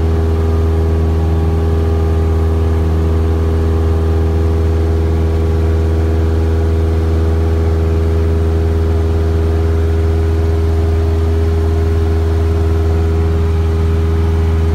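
Single-engine piston Cessna's engine and propeller running steadily in flight, heard from inside the cabin: a loud, even drone with several steady tones that do not change.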